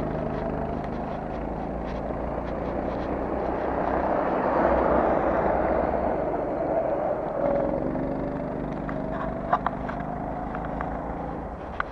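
Motor traffic passing on a city street: engine and tyre noise swells to its loudest about halfway through and eases off as the vehicles go by. Faint footsteps of someone walking, and two short sharp clicks near the end.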